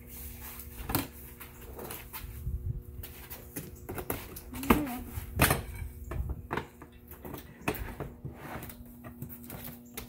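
Irregular clicks, knocks and clatter of a metal pole being worked into the plastic clips on the back of a plastic pirate-ship prop panel, the loudest knocks about halfway through.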